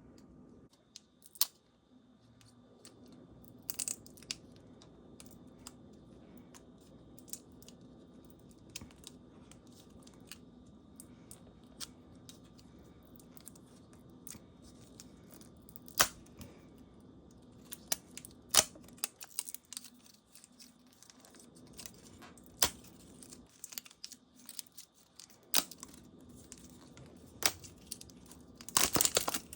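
Paper wrapping being picked and torn off a toy egg by hand: scattered sharp rips and crinkles, with a louder burst of tearing near the end.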